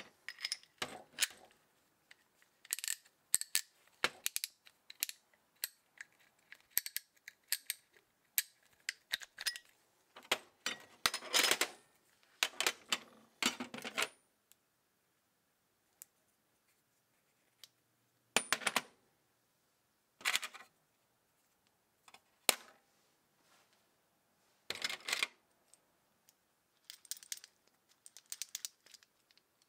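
Steel sockets and hand tools clinking and clattering against each other and a metal socket-set box as they are picked up and set down. The clinks come in short bursts with quiet pauses between.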